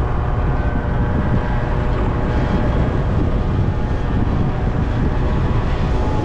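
Yamaha Zuma 50cc two-stroke scooter engine running steadily at cruising speed, with wind buffeting the microphone.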